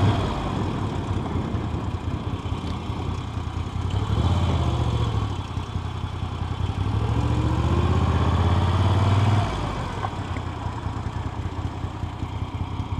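Motorcycle engine running at low speed, picking up twice with a rising pitch as the throttle opens, then easing off again.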